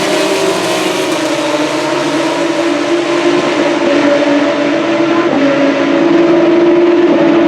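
Formula 3 race car engines, naturally aspirated 3.4-litre Mecachrome V6s, running at high revs on track, with several engine notes overlapping. The sound holds steady and grows a little louder about six seconds in.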